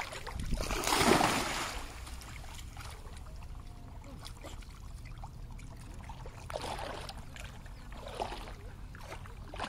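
Water splashing as a dog wades and plunges its head under the water, loudest about a second in, then softer sloshing over a steady low rumble.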